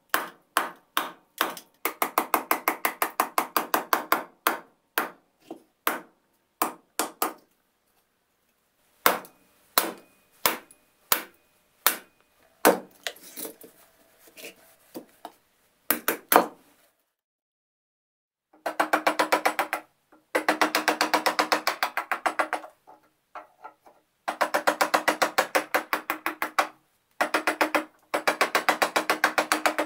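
Quick runs of mallet blows on a hatchet that is being driven through a pear-wood branch to split it, with a few single blows in between. After a short pause, denser runs of rapid blows ring out as a broad chisel is driven along the split billet.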